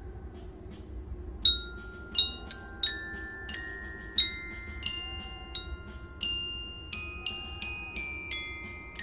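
Music score: bell-like mallet-percussion notes, like a glockenspiel, struck one at a time at changing pitches, each ringing on. They begin about a second and a half in and come roughly two a second, over a soft low hum.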